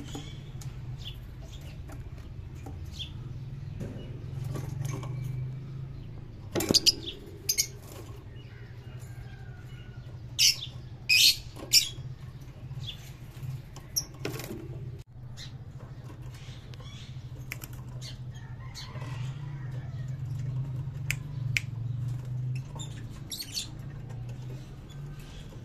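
A parblue opaline Fischer's lovebird fluttering its wings in a wire cage, with several short, sharp sounds, the loudest in a cluster around ten to twelve seconds in, over a steady low hum.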